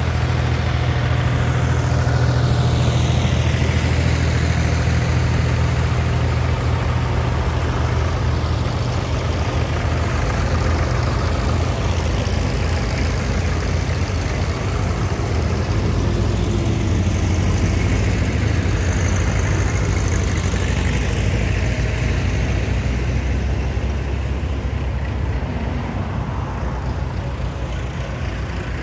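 Vintage farm tractors, among them a grey Ferguson and a red Massey Ferguson, passing one after another in a procession, their engines running steadily. Their pitch sweeps as each machine goes by.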